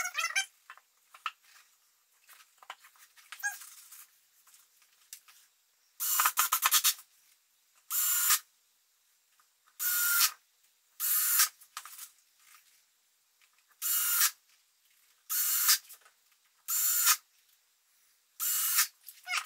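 Cordless drill/driver with a Phillips bit driving screws into the wooden frame of a Warre hive box. The motor runs in eight short bursts, each under a second, the first the longest, with pauses between.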